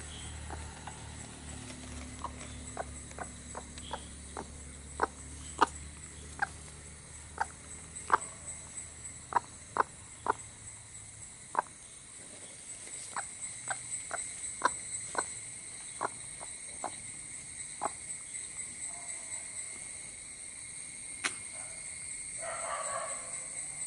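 Broody hen shifting on her eggs in a straw nest: irregular sharp taps and clicks about one or two a second, with a short rustle of straw near the end. Steady high insect trilling behind.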